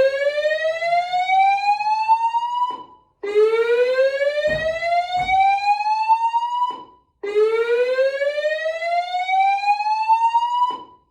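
Fire alarm voice-evacuation system sounding its slow-whoop evacuation tone: three loud rising whoops, each about three and a half seconds long, with short gaps between them.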